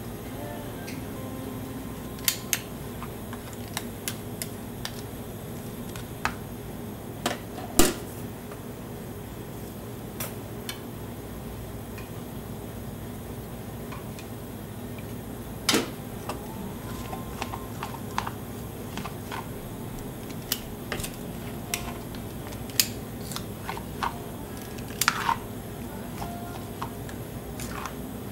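Spatulas clicking, tapping and scraping on a chilled cold-stone plate as ice cream is chopped and mixed, in irregular sharp knocks over a steady hum.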